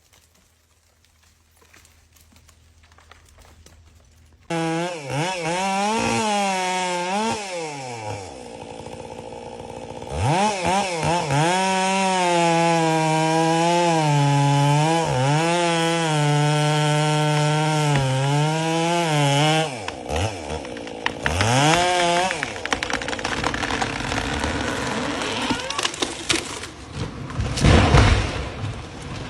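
Chainsaw engine revving, its pitch rising and falling, then held at full throttle for about ten seconds with brief dips, as in cutting. After one more rev it gives way to noisier sound, with a short, loud burst of noise near the end.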